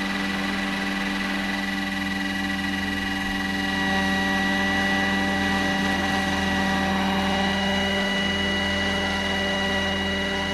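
Scale RC helicopter running with its rotors at speed: a steady whine of several held tones from the rotor head and drive. It grows a little louder about four seconds in as it is powered up to lift off the pad.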